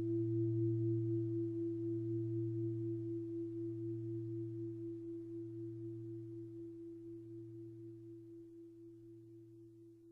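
A mindfulness bell's low ring dying away slowly after a strike, its tone wavering with a gentle pulse. No new strike comes.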